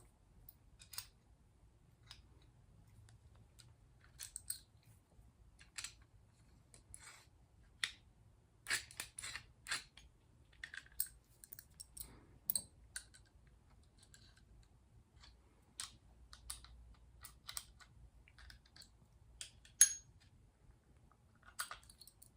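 Scattered, irregular small clicks and taps of hands working a door closer's metal arm and its replacement 1/4-inch adjusting bolt, with the loudest click about twenty seconds in.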